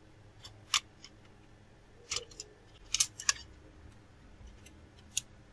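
Rubber bands snapping and slapping against a tablet's glass screen and edges as they are stretched around it to clamp the glued display: a few sharp, short clicks spaced out over several seconds.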